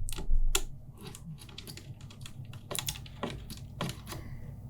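Irregular light clicks and taps of small metal parts: an M.2 standoff being picked up and fitted into a motherboard.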